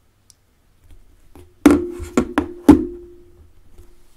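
Four sharp knocks on a wooden tabletop within about a second, followed by a low ringing note that fades out about a second later.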